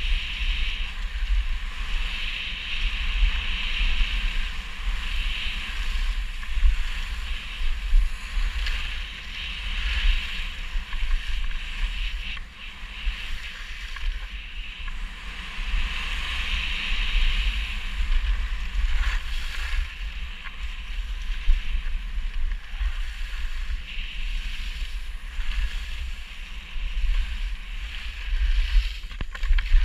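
Skis hissing and scraping over packed snow during a downhill run, swelling and fading every second or two, with wind buffeting the helmet-mounted GoPro's microphone in a low rumble.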